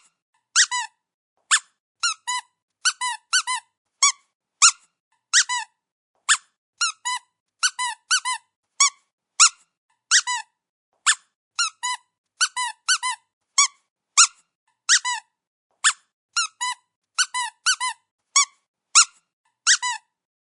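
Dog's rubber squeaky toy squeezed again and again, giving short high squeaks, often in quick pairs or threes, with brief pauses between.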